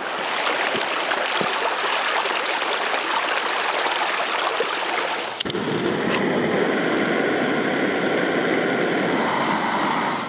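A creek running over rocks for about five seconds. Then, after a sudden click, a Jetboil camping stove's gas burner runs with a steady hiss and several steady whining tones as it heats water.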